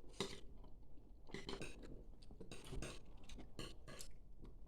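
Quiet, scattered clinks and taps of cutlery and dishes at a meal table, a handful of small knocks spread across a few seconds.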